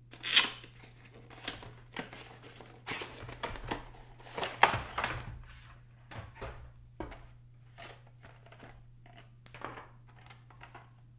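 Hands handling a clear plastic blister tray and a small die-cast model: irregular clicks, taps and crinkles of the plastic packaging, the loudest about half a second in and again about four and a half seconds in.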